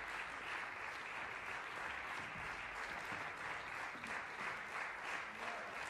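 Concert audience applauding steadily, a dense, even patter of many hands clapping.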